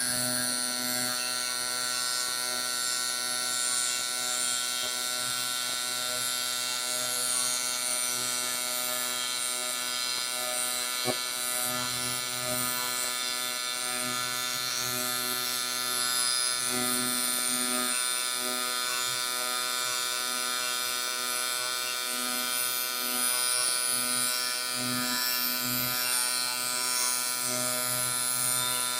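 AC TIG welding arc on aluminum intake runners: a steady buzz with a strong hiss over it. A single short click sounds about 11 seconds in.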